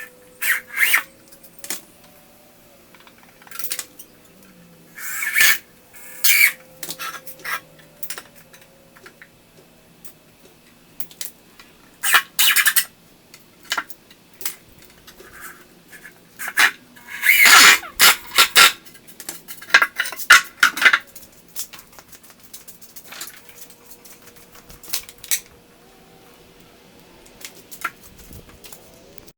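Irregular clinks, knocks and clatter of tools and hardware being handled on a workbench, with the busiest, loudest run of clatter a little past the middle.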